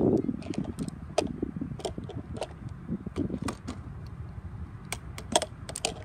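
Plastic clicks and clatter as a hand-held toy grabber arm grips a mini trash bin, tips it over a larger plastic bin and sets it back down, over a steady low rumble.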